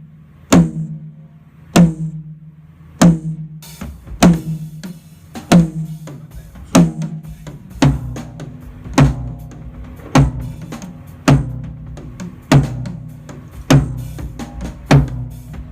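Drum soundcheck: one drum of a drum kit struck singly at an even pace, about one hit every 1.2 seconds, each hit ringing at a steady low pitch. From about four seconds in, a fainter, busier layer of sound fills the gaps between the hits.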